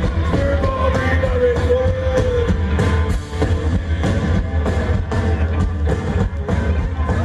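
Rock music with a sung vocal, electric guitar and drum kit, with a steady beat.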